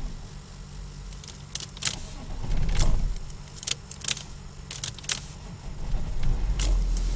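Range Rover P38's BMW M51 straight-six turbo-diesel engine running with a steady low hum, with about eight sharp metallic clicks and jangles over it.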